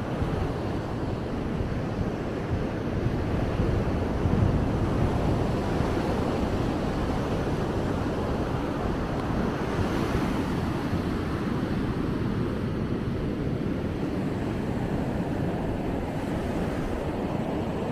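Ocean surf breaking and washing up the beach in a steady rush, a little louder about four seconds in.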